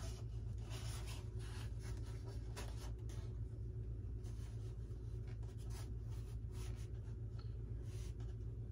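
Light scraping, rustling and small knocks as a foam RC model plane fuselage is handled and turned over, over a steady low hum.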